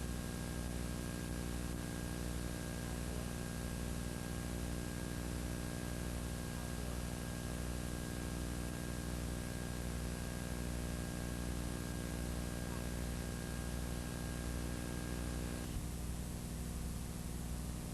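Steady electrical mains hum and hiss, a bare recording noise floor with no other sound; a faint high whine in it cuts off near the end.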